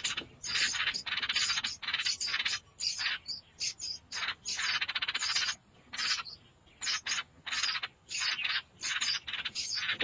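Nestling songbirds begging: many short, high, hissy calls in quick bursts with brief gaps between them.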